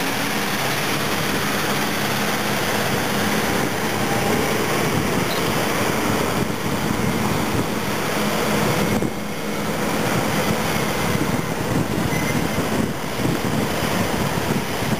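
Caterpillar D8R bulldozer and twin-engine Caterpillar 637E scraper, their big diesel engines running hard under load as the dozer push-loads the scraper through sand. A steady, loud engine noise that dips briefly about nine seconds in.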